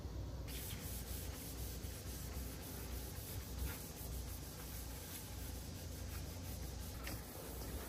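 A cloth wiping a kitchen cabinet door, a steady scrubbing hiss with faint scuffs that starts about half a second in, over a low steady hum.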